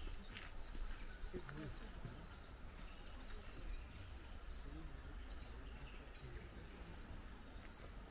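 Outdoor woodland ambience: faint bird chirps, with a quick run of thin high peeps near the end, over distant indistinct voices and a steady low rumble.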